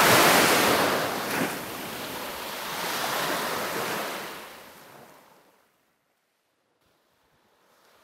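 Surf washing onto a sandy shore, a broad rushing noise that swells twice and then fades out about five seconds in, leaving near silence before a faint return at the end.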